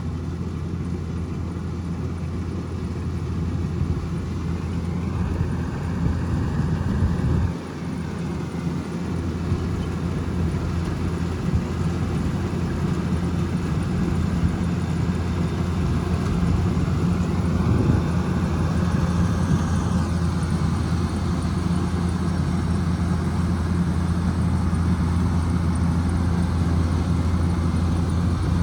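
Kubota DC105X combine harvester running steadily while harvesting rice: a continuous low engine drone with a higher whine that rises and falls twice. The drone dips briefly about seven seconds in.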